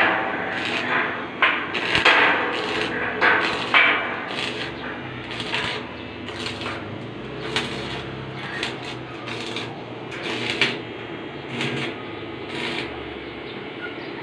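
Electric arc welding as a barrel bolt is tacked onto a steel gate: crackling and sizzling in short, irregular bursts, denser and louder in the first few seconds.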